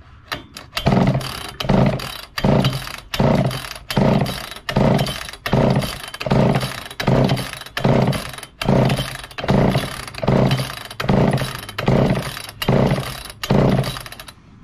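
1969 Homelite EZ Automatic two-stroke chainsaw being cranked on its pull-cord recoil starter: about seventeen quick, even pulls a little under a second apart, each a rasping crank of the engine. The long-stored engine does not fire.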